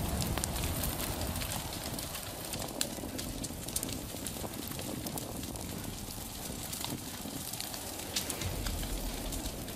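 Wildfire burning through forest undergrowth: a steady rushing noise of flames with frequent sharp crackles and pops.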